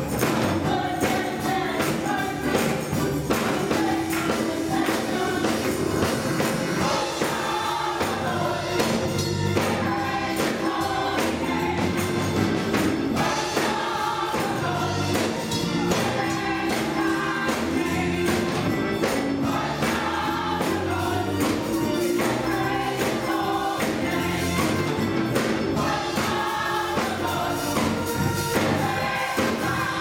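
Gospel choir singing an upbeat praise song with keyboard and organ accompaniment, hand clapping keeping a steady beat.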